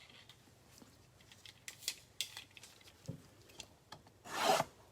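A knife cutting open the plastic wrapper of a trading card pack: small crinkles and clicks, then a half-second slicing sound near the end.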